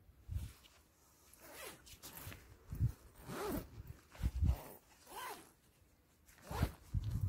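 Zip on the door of an Oex Bush Pro Salamander hooped bivvy being pulled open in several short pulls.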